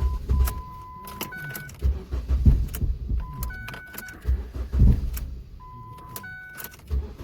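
A Ford Focus engine that was running cuts out about a quarter second in. Then come a few separate low thuds, short steady electronic chime tones, clicks and keys jangling.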